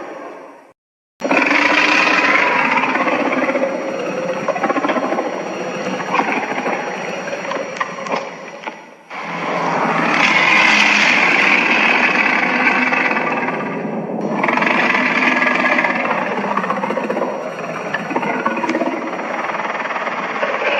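Three long kaiju monster growls, Gamera-style sound effects, each starting abruptly. The first lasts about eight seconds and the next two about five and seven.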